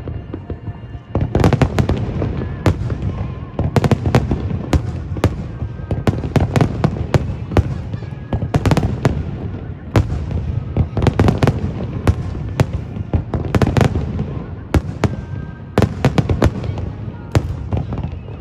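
Aerial fireworks bursting in quick succession: many sharp bangs, often in rapid crackling clusters, over a continuous low rumble.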